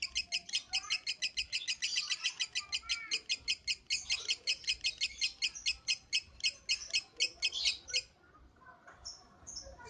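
Lovebird chattering in a fast, unbroken train of high, even chirps, about seven a second, which stops abruptly about eight seconds in.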